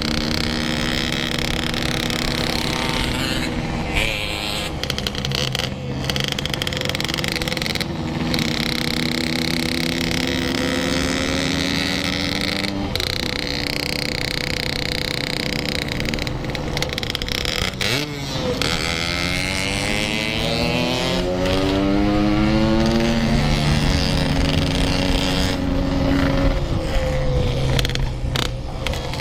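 Yamaha RX-King's two-stroke single-cylinder engine pulling under acceleration while riding. Its pitch climbs and then drops back several times as it shifts up through the gears.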